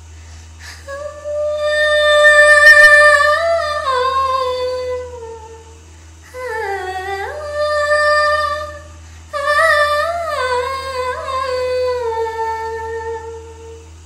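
A woman singing unaccompanied. There are three long melodic phrases with held notes and gliding ornaments, starting about a second in, around six seconds in, and about nine seconds in.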